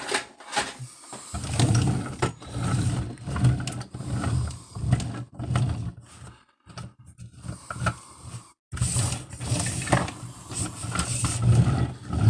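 Handling noise: a loud, uneven low rumble with scattered knocks and clicks as toys are moved around near the microphone. It stops for a couple of seconds past the middle, then starts again.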